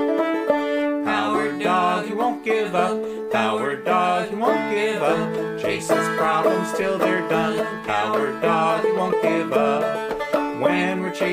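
Banjo-led bluegrass-style instrumental of a theme song in D. Held notes give way about a second in to quick plucked picking.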